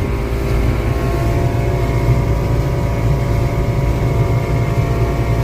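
Motorboat engine running steadily at cruising speed, a low rumble with a steady whine over it.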